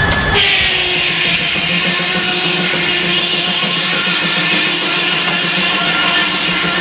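Circular sawmill blade biting into a log: its free-running whine switches abruptly into a loud, rasping cutting noise about a third of a second in, the pitch sagging slowly as the blade takes the load.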